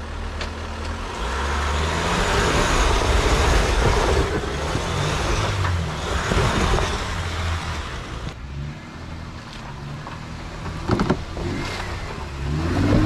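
Jeep Gladiator's engine revving under load as it crawls over a wet rock ledge, with a loud hiss of tyres slipping on mud and rock for several seconds. After about eight seconds it drops to a quieter engine running, with a couple of brief knocks.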